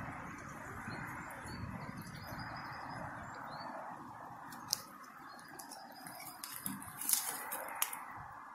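Light metallic clinks and clicks from a dog lead's metal clip being fastened around a birch trunk to hold a bottle. There is one sharp click about halfway through and a few more near the end, over a steady background hiss and faint bird chirps.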